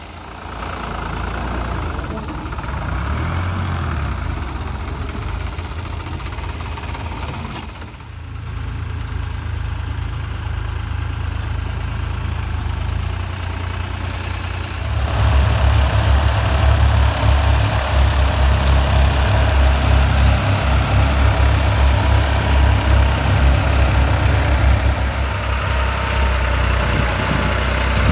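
New Holland 3630 TX Super tractors' three-cylinder diesel engines running under load while pulling rotary tillers through the soil. From about halfway on, the low, pulsing engine rumble is much louder.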